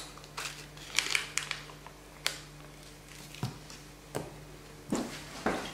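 Foil seal being peeled off a plastic pot of Greek yogurt: crinkling in the first second or so, then several sharp clicks and taps.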